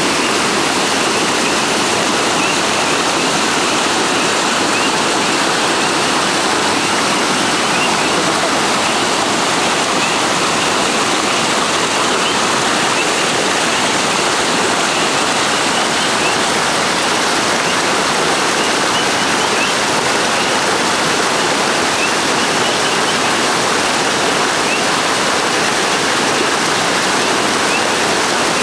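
A river swollen by fresh rain, its water rushing in a steady, loud roar of whitewater.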